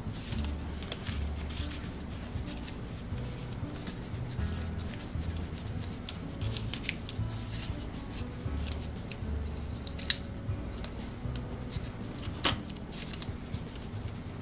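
Small brass pump parts and a plastic piece handled and fitted together by hand, giving scattered light clicks and rubbing, with one sharper click about twelve and a half seconds in.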